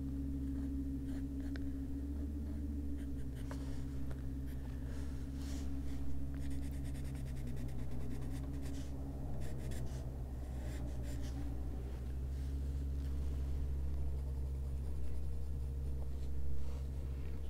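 A Derwent Drawing coloured pencil scratching across paper in short strokes, pressed hard to lay down white highlights, over a steady low hum.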